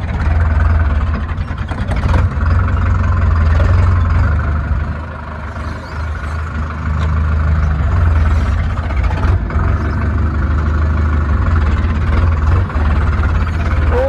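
Diesel tractor engine running steadily with a deep, loud hum, dipping briefly about five seconds in.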